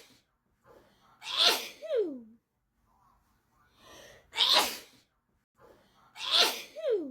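A person sneezing three times in a fit, each sneeze preceded by a short in-breath. The first and last sneezes end in a voiced 'choo' that slides down in pitch.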